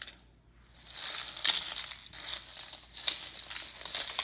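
Metal costume jewelry clinking and jangling as pieces are handled and pushed about on a tabletop. It starts about a second in as a run of small clinks, with a few sharper clicks.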